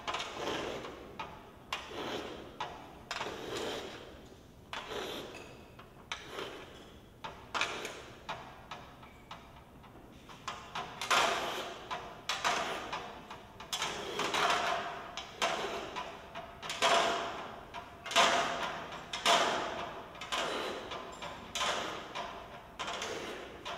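Crinkling and rustling of a thin metal foil sheet as a man presses and rubs his face into it on a hard floor, in irregular bursts about once a second that grow louder in the second half.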